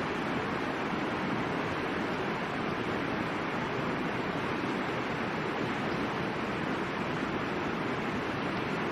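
Steady rushing of the Middle Fork of the Boise River, an even wash of flowing water.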